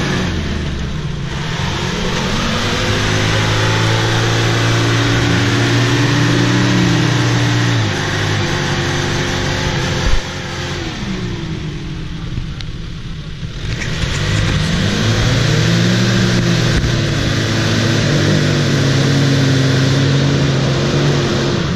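Jeep Cherokee 4.0 straight-six revved hard in two long bursts, wheels spinning as it struggles to climb out of deep mud. The revs waver up and down within each burst, ease off in the middle, and a single sharp knock comes about ten seconds in.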